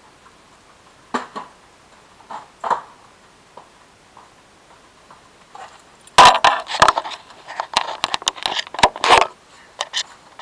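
Close handling noise on a camera: a few faint taps, then from about six seconds in a dense run of loud knocks, scrapes and rubbing right at the microphone as a hand grips the camera.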